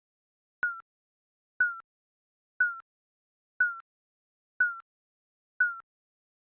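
Digital countdown timer beeping once a second: short, slightly falling electronic beeps, each ending in a faint click, six in a row.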